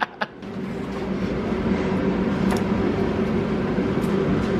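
A running engine gives a steady low drone with a few held low tones. It comes up about half a second in and builds over the next second.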